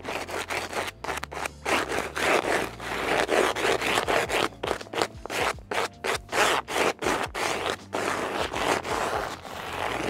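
Plastic squeegee scraping in repeated strokes over FSK foil tape laid along the seam of foil-faced duct insulation, pressing the tape down so its adhesive bonds.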